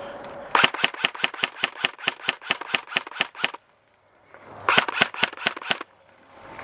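Airsoft gun firing full-auto: a rapid burst of about eight shots a second lasting about three seconds, a short pause, then a second burst of about a second.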